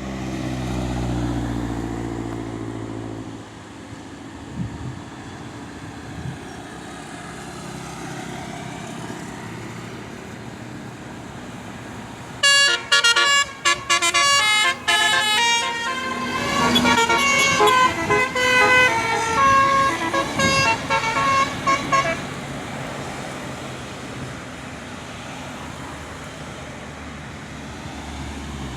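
Bus horn sounding a quick series of short notes at changing pitches for about ten seconds, midway through, over the steady running of a bus engine and road noise; a louder low engine rumble comes in the first few seconds.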